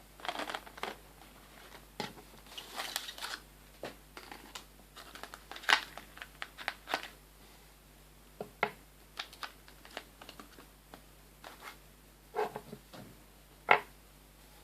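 Packaging being opened and handled by hand: intermittent rustling and crinkling with scattered sharp clicks and taps.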